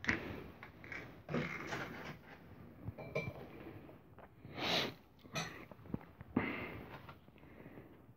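Food chopper being taken apart by hand: the lid unit is lifted off the bowl and handled, giving a string of faint, scattered clicks, knocks and rubbing of plastic and glass.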